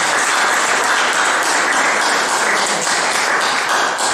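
Audience applauding, a dense steady clapping that begins to thin into separate claps near the end.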